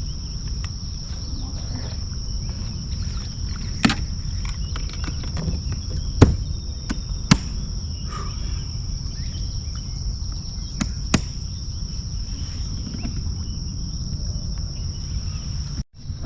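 Steady high-pitched insect chorus, crickets or similar, over a low rumble of wind or water, broken by four or five sharp knocks, the loudest about six seconds in.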